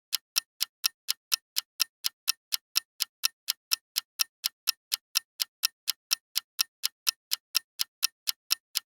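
Clock-style ticking sound effect, sharp evenly spaced ticks at about four a second: a quiz countdown timer running while the viewer picks an answer.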